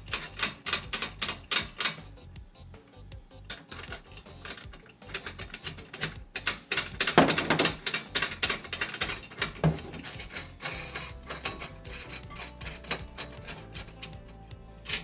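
Rapid metallic clicking, several clicks a second, from the bolts and small metal parts of a chainsaw mill kit being handled and fastened. The clicking thins out about two seconds in and is densest around the middle.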